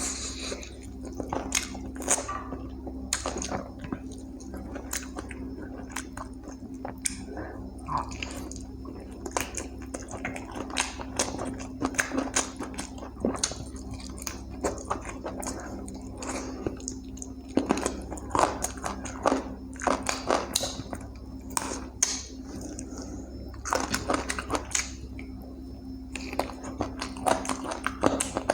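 Close-miked eating of chicken curry with rice: irregular wet chewing and biting clicks, with occasional louder smacks and crunches, over a steady low hum.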